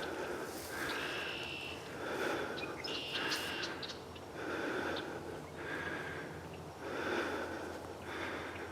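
A person breathing heavily close to the microphone, in a regular rhythm of about one breath a second.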